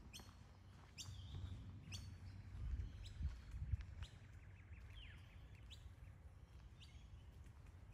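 Birds chirping, short sharp calls that drop in pitch and repeat about once a second, over a faint low rumble that swells in the first half.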